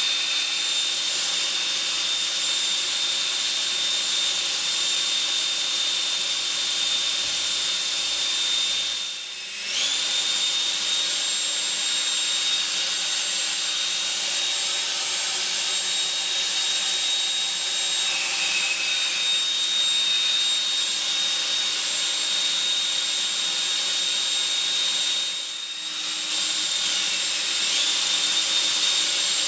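Electric ducted fan of a model rocket running at steady high speed: a constant high whine over rushing air. The sound dips briefly twice, once about nine seconds in and once near the end.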